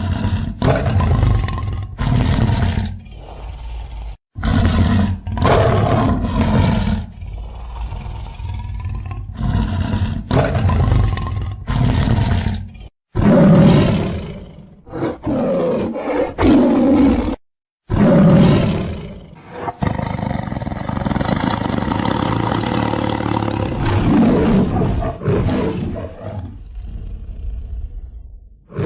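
Sound-effect roars for a made-up lion-dinosaur creature: a long string of lion-like roars one after another, spliced with abrupt cuts and a few brief silent gaps.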